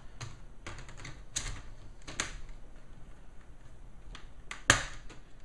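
Plastic snap clips of an HP Pavilion g6 laptop's screen bezel clicking and popping loose as the bezel is pried off by hand: a few scattered clicks, with the sharpest pop near the end.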